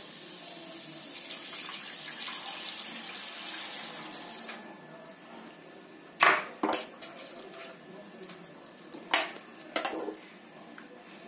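Thin coconut milk being poured into a stainless steel pan of paneer masala, a steady splashing pour for about four seconds. Then a metal spoon stirs and clinks against the pan several times, the loudest clink about six seconds in.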